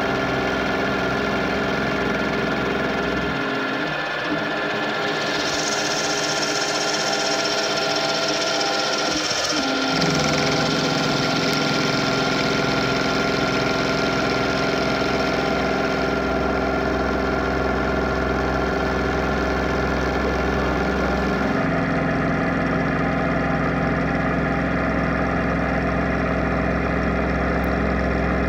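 Kompas VF45GS CNC milling machine running, its end mill side-milling the edge of a steel plate: a steady mechanical hum and whine made of many steady tones. The low hum drops out for several seconds early on while a higher hiss comes in, and the tone shifts again about two-thirds of the way through.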